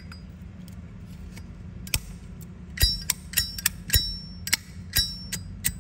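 A Zippo lighter's metal lid snapped open and shut again and again: a quick series of sharp clicks, several with a short, bright metallic ring.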